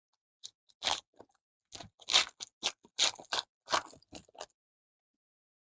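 Foil wrapper of a trading-card pack crinkling and tearing as it is ripped open by hand, in a run of irregular crackles lasting about four seconds.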